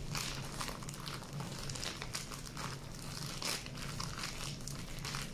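Plastic zip-top bag crinkling and rustling as hands knead rice flour and white glue inside it, mixing cold porcelain clay: a run of irregular crackles, a few louder squeezes standing out.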